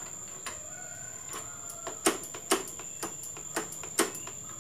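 Sharp, irregular clicks and taps, about eight in all with the loudest about two seconds in and near the end, from a Honda Revo's front disc-brake lever being pumped while air is bled from the brake line.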